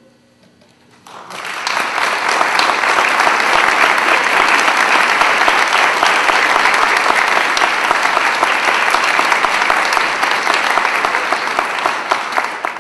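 Audience applauding at the end of a string quartet piece. The clapping breaks out about a second in and then holds steady and dense.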